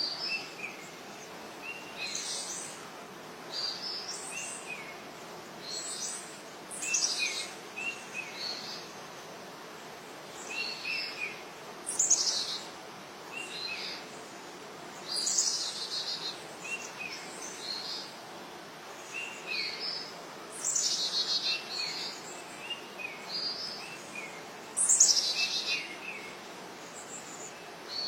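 Birds chirping and calling again and again: short high chirps in twos and threes, and every few seconds a longer falling trill, over a steady hiss.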